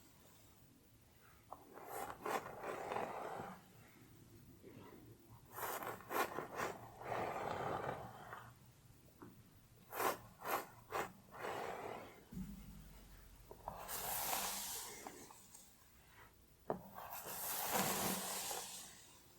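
Hair and scalp being scratched, in about five bursts of strokes. There are several quick, sharp scratches around ten seconds in, and longer, fuller rubs later on.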